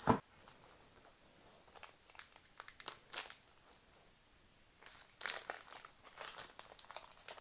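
Foil trading-card booster pack being torn open and crinkled by hand, in short bursts of rustling about three seconds in and again over the last two seconds or so.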